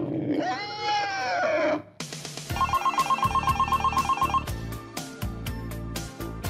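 A drawn-out cry whose pitch rises and falls, then, after a short break, music starts and a phone ringtone trills in quick repeated bursts over it.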